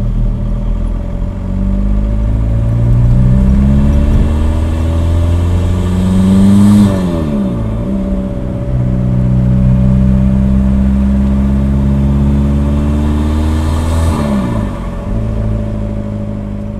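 Volkswagen Caddy's engine heard from inside the cab, pulling up through the revs twice. The pitch drops sharply at an upshift about seven seconds in and again about fourteen seconds in, then it runs steady.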